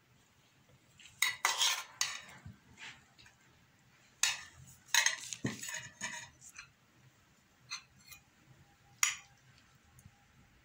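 Metal cutlery clinking against a plate in several separate bursts, busiest about a second in and again between four and six and a half seconds in, with single clinks near eight and nine seconds.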